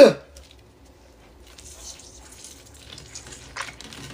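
Hands squeezing and twisting a whole orange, making faint squishing and crackling of the peel with small wet clicks that grow slightly. It opens with a brief loud sound sliding downward in pitch.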